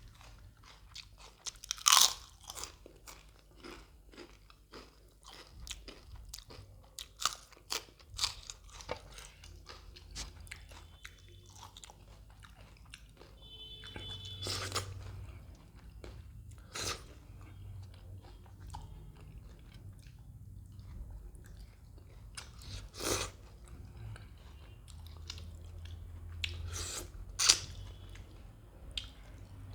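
Close-miked chewing with loud crunching bites into crisp food, such as raw onion or green chilli, over wet mouth sounds. The loudest crunches come about two seconds in, in the middle, and twice near the end.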